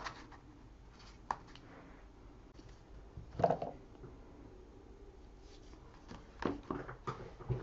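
Quiet hands-on crafting sounds of double-sided tape being pulled from its roll and its paper backing peeled off strips on a card cover. There is a small click early, the loudest short noise about three and a half seconds in, and a few quick noises near the end.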